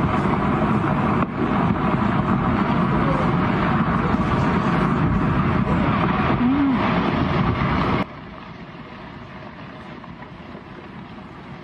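Storm wind blasting the microphone in a loud, steady rush. About eight seconds in it cuts off abruptly to a quieter hiss of wind and water.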